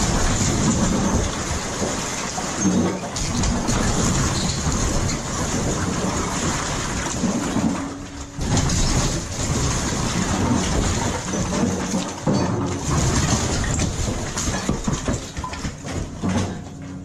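Heavy machinery tearing down a house: an engine running under a continuous crashing and crackling of breaking wood and falling debris.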